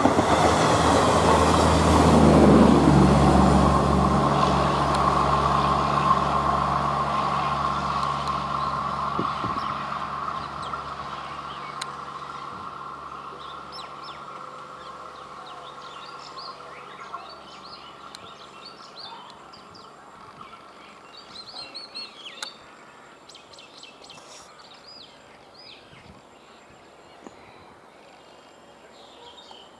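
Garib Rath Express passenger coaches rolling past on the rails and fading as the train recedes, with a steady hum that lingers and dies out about two-thirds of the way through. Birds chirp over the fading train in the second half.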